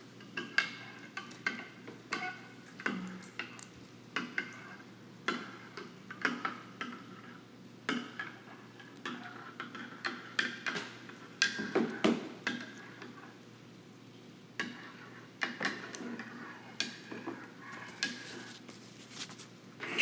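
A spoon stirring borax into hot water in a bowl, clinking and scraping against the container in irregular strokes, some with a brief ring; the stirring pauses for a moment a little past the middle. The borax is being mixed until it dissolves.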